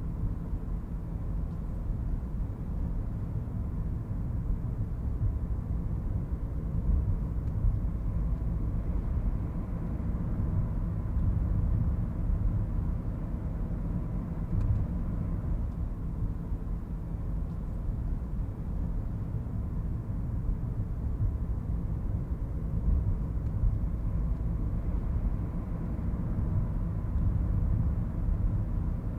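City ambience: a steady low rumble of distant traffic.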